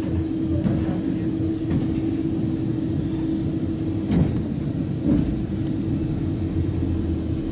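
Tatra T3 tram (MTTA modernisation) running, heard from inside the car: a steady hum over a low rumble, with two knocks about four and five seconds in.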